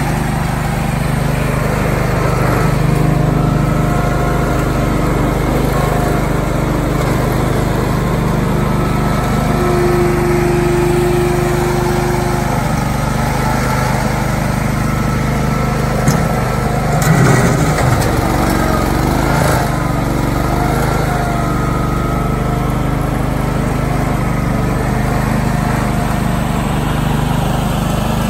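Bolens 1250 garden tractor's engine running steadily while it works a front loader. A few knocks and clunks come about two-thirds of the way through.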